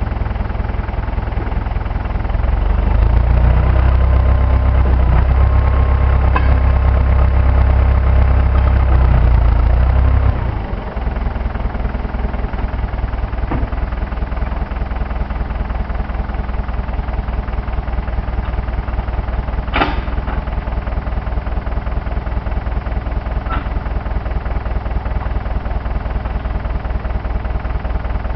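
Case 530CK backhoe's four-cylinder diesel engine running. It gets louder and heavier from about two seconds in for some eight seconds, then drops back to a steady run. A single sharp knock comes about twenty seconds in.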